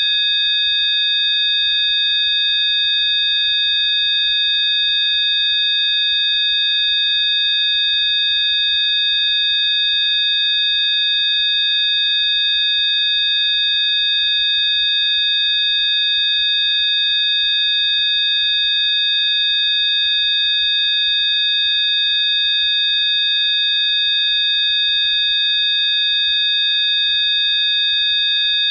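Rife frequency tones: several steady, high-pitched electronic sine tones sounding together, held without any change in pitch or level.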